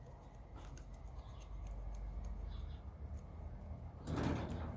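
A knife scraping at the fire spot: a few faint scrapes and ticks, then one louder rasping stroke about four seconds in. A low rumble of wind on the microphone runs underneath.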